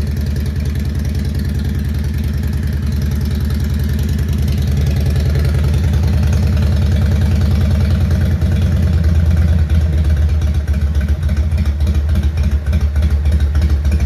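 Harley-Davidson FXR's Evolution V-twin, on its stock carburettor and ignition with an aftermarket exhaust, idling from a cold start while it warms up. The idle grows a little louder about halfway through.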